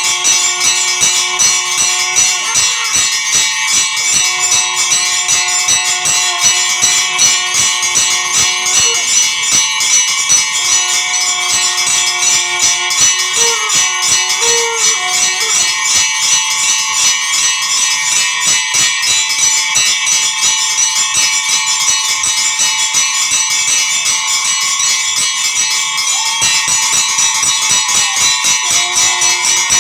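Temple bells ringing rapidly and without a break, with a melody of long held notes over them.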